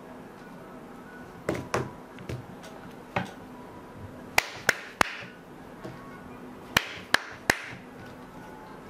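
A series of about ten sharp taps and knocks, some in quick pairs and threes, over faint background music.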